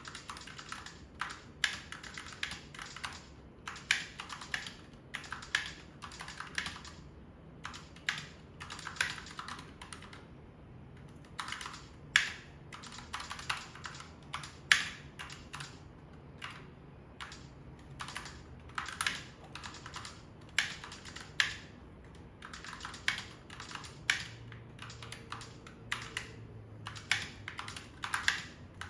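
Typing on a Razer Huntsman Tournament Edition mechanical keyboard with linear optical switches: quick runs of key clicks and clacks, broken by short pauses, with a few louder strokes.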